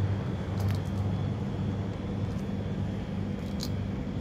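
Steady low background rumble, like distant traffic or machinery, with a few faint clicks.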